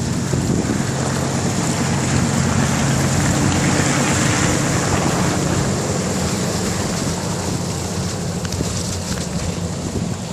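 Wind rushing over the microphone during a bicycle ride, with a motor vehicle's engine droning under it that fades out about halfway through.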